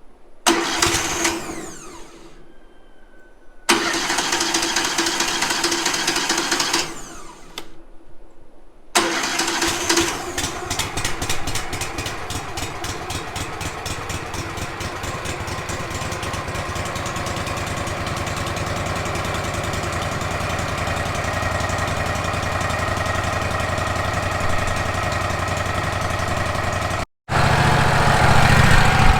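The Wood-Mizer LT15 sawmill's engine being started: two short tries that stop, then about nine seconds in it catches and keeps running steadily. Near the end the sound cuts to a deeper, louder running.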